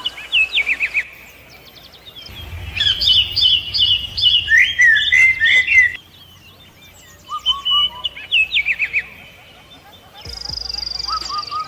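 Several birds chirping and calling. A quick run of falling chirps comes near the start and again about seven seconds in, with a dense burst of overlapping chirps between them and a steady high buzz near the end.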